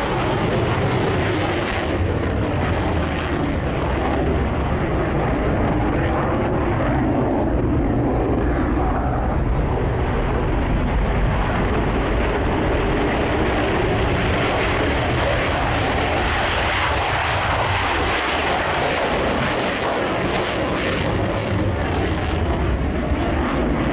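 Jet noise from a Mitsubishi F-2 fighter's single F110 turbofan engine in flight, a loud steady roar that holds throughout.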